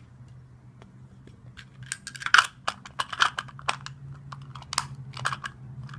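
Small erasers and hard plastic pieces clicking and rattling as they are handled, likely in a small plastic case, in quick clusters starting about a second and a half in, over a faint steady hum.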